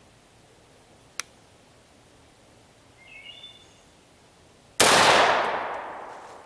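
A single shotgun blast about three-quarters of the way through, firing a buckshot handload of sixteen .31-calibre pellets; the report starts sharply and trails off over about a second and a half.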